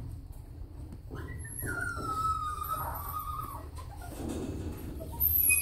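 Small dog whining: one long, high whine about a second in that slides down in pitch and then holds for a couple of seconds, with another falling whine starting near the end.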